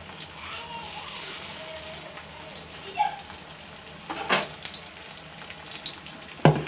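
Battered ash gourd slices (chal kumror bora) deep-frying in oil in a kadai, sizzling steadily. A few sharp knocks come through, the loudest near the end.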